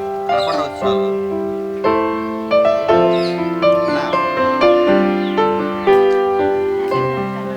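Background instrumental music: a slow melody of held notes over sustained chords, with a new note struck every half second to second.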